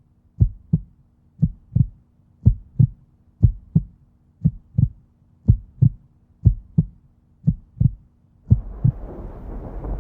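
Heartbeat-style sound effect: a low double thump, like lub-dub, repeating about once a second over a faint steady hum. Near the end it gives way to a swelling low rumble of noise.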